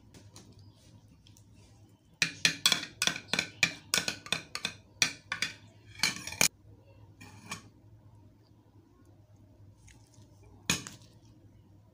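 Metal spoon clinking against a small ceramic bowl: a quick run of sharp clinks over about four seconds, a couple more a little later, and one louder sharp clink near the end.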